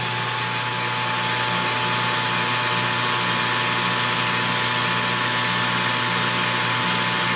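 Metal lathe running steadily at about 1,000 RPM while its cutting tool turns down the end of a 3/16-inch rivet held in a collet. The lathe's motor and drive give an even hum with a low tone that pulses at a slow, uneven beat.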